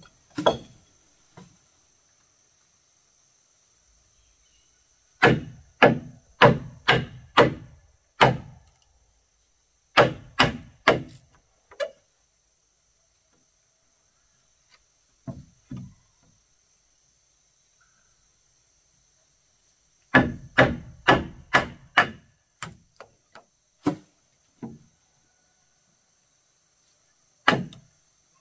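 Repeated blows on wood, in bursts of four to seven strikes about two a second with gaps between, then a few scattered single strikes. A steady high drone of insects runs underneath.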